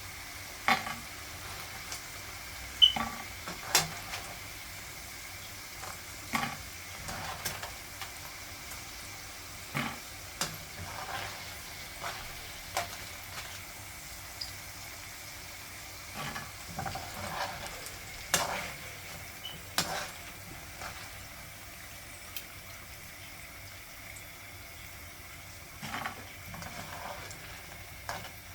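Chips deep-frying in hot cooking oil: a steady sizzle with sharp pops and crackles every second or two.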